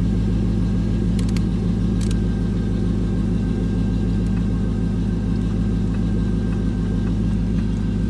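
Chevrolet Caprice's engine idling steadily, with a few light clicks about a second and two seconds in.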